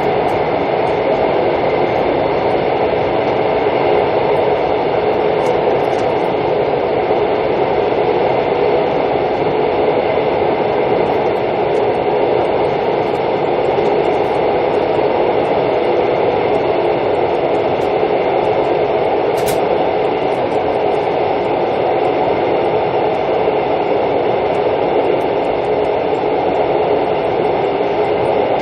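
Mugunghwa-ho passenger train running at speed, heard from inside the carriage: a steady, even running noise of wheels on rails and air rushing past, with no distinct rail-joint clacks.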